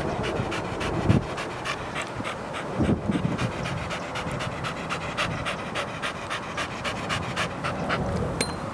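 Blue Staffordshire bull terrier panting hard with its mouth open, close to the microphone, at about four quick breaths a second. Two low thumps come about one and three seconds in.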